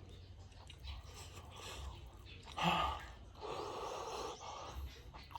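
A person breathing audibly while eating, with a short sharp gasp about halfway through and then a longer breathy exhale, over a low steady rumble.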